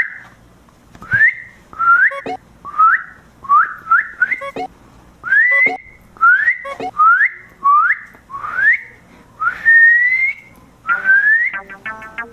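A person whistling short rising notes at a puppy to catch its attention, about a dozen in a row, each sliding up to a high pitch. Two of them, one midway and one near the end, are longer and slower.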